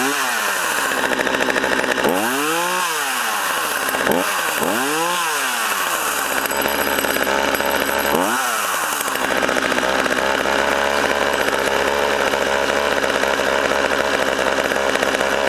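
Poulan-built Craftsman 42cc two-stroke chainsaw engine revved up and let back down to idle four times, then idling steadily.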